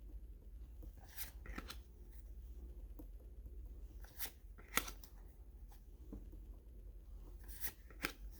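Baseball cards being handled and flipped through one by one: about half a dozen short, crisp flicks and rustles of card stock, spaced a second or more apart.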